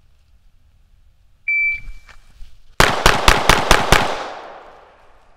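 Shot timer (PACT Club Timer III) gives one short, high start beep, and about 1.3 seconds later a handgun fires six rapid shots, about a fifth of a second apart: a bill drill. The sound of the shots rings out and fades after the last one.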